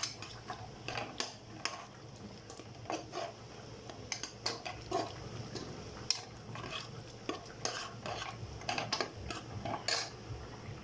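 A cooking utensil stirring tomato-and-onion gravy in a pan, scraping and clinking irregularly against the pan over a low sizzle.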